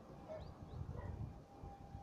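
Outdoor ambience: an uneven low rumble of wind on the microphone, with a few faint short bird chirps. A faint steady tone begins near the end.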